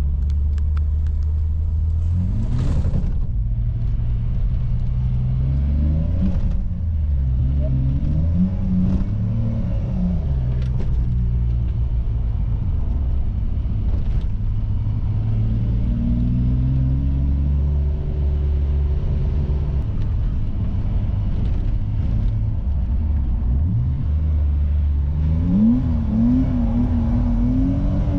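BMW E28's engine heard from inside the cabin while driving, its note rising and falling several times as the driver works the throttle, then climbing again near the end.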